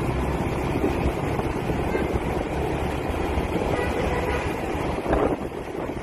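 Wind noise on the microphone mixed with the motorbike's engine and street traffic while riding through town, with a brief louder sound about five seconds in.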